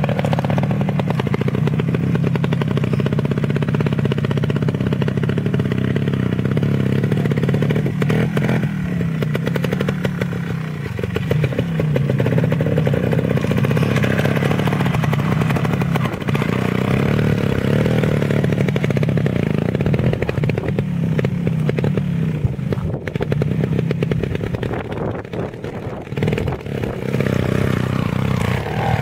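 Trials motorcycle engine running at low revs, its pitch rising and falling with small throttle changes as the bike is ridden slowly over rocks and up a dirt bank.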